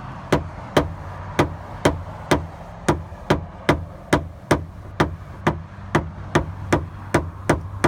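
Paintless dent repair tap-down tool being tapped steadily on the sheet metal of a pickup truck door, about two sharp taps a second, knocking down a high spot at the crest of the dent. A steady low background hum runs under the taps.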